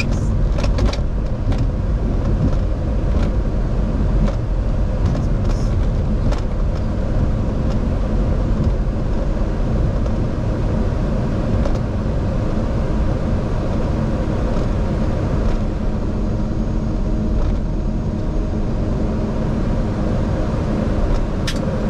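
Steady low rumble and hum of an airliner rolling along the runway after touchdown, heard inside the cockpit, with a few light clicks in the first second and again near the end.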